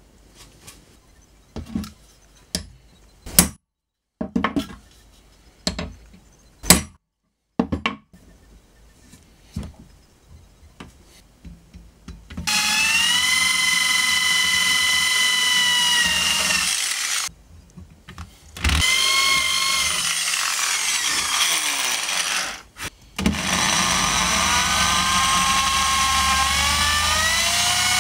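Scattered sharp knocks and clicks for the first twelve seconds or so. Then the high whine of a rotary tool's grinding bit working a steel knife blade, stopping briefly twice. Near the end a power tool's whine climbs in pitch as it spins up, with an electric drill boring into wood.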